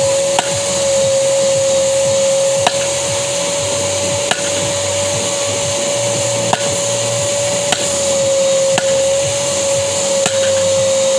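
Hammer blows, about seven sharp strikes spaced one to two seconds apart, over the steady whine of a vacuum cleaner running.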